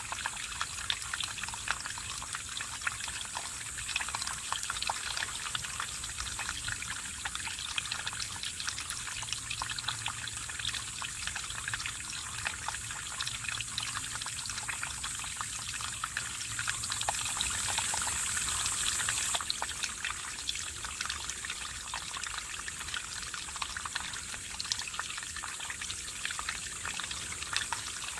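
Mountain stream running over rocks: a steady trickling and splashing of water with many small splashes. A high hiss swells briefly about two-thirds of the way through and cuts off suddenly.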